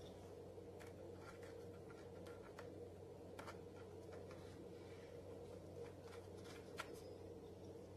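Faint small clicks and rubbing of gloved hands seating a carburetor onto a trimmer engine, one click slightly louder near the end, over a steady low hum.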